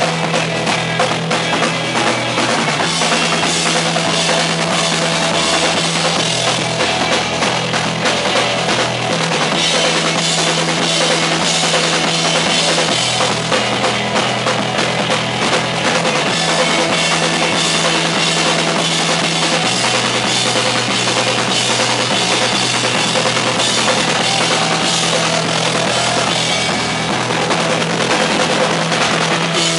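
Live rock band playing loud: a busy drum kit pounding throughout, with held low bass notes that shift every few seconds.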